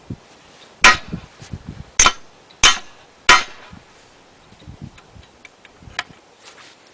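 Four sharp metallic knocks, irregularly spaced over about two and a half seconds, among lighter clicks and clinks, as of steel parts of the sawmill log bunk equipment being struck or handled.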